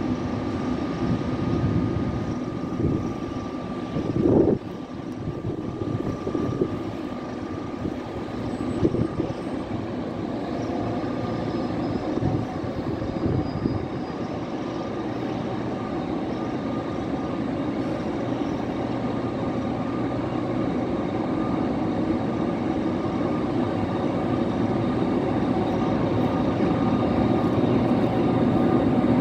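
SNCF BB 25606, a BB 25500-class electric locomotive, moving off with a regional train. Its motors and cooling blowers give a steady hum with a few held tones that grows slowly louder as it draws nearer. A few knocks come in the first ten seconds, the loudest about four seconds in.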